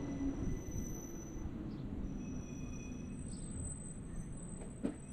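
Narrow-gauge Bernese Oberland Railway train running: a steady low rumble with a few faint thin high tones above it and a sharp click near the end.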